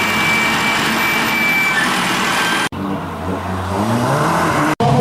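Bilcross race cars' engines at the track: loud, noisy engine sound, broken by a hard edit cut about halfway. After it a single engine revs up with rising pitch, and another cut comes just before the end.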